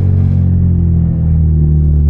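Hyundai Genesis Coupe's turbocharged four-cylinder and loud exhaust droning at a steady cruise, heard from inside the cabin.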